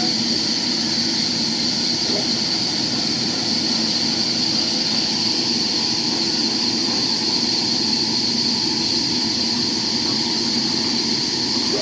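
Sawmill machinery running with a loud, steady, unchanging mechanical drone.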